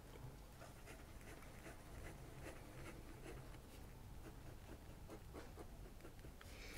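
Faint scratching of an Esterbrook Estie fountain pen's fine nib on paper, drawing loops and short strokes.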